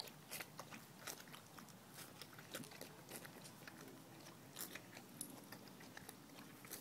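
Bull terrier lapping and biting at water from a lawn sprinkler: faint, irregular wet clicks and smacks of its mouth.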